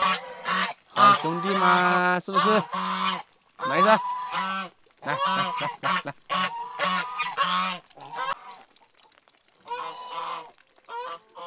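Domestic goose honking again and again in quick runs of calls, falling quiet for a couple of seconds near the end before one more short run.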